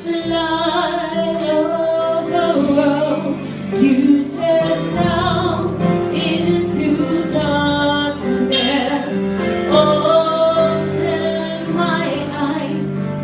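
Music with a woman singing over a band with bass and percussion.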